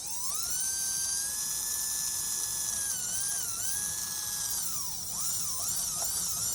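Small electric motor from an HO-scale model locomotive running on test power after being cleaned and dried. It spins up at the start into a steady high whine, then its speed wavers up and down several times near the end before it stops.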